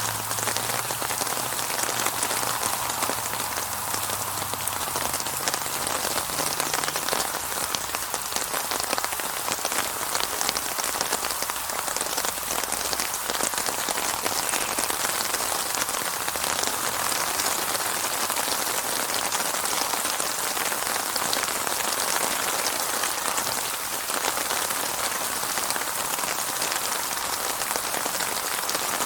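Steady rainfall, dense drops hitting a surface in a constant hiss and patter, with no thunder.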